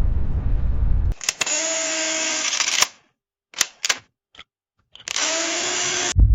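A deep rumble runs for about a second, then breaks off into a camera's motorised mechanism whirring for nearly two seconds. A few sharp shutter-like clicks follow, then a second shorter whir near the end before the deep rumble cuts back in.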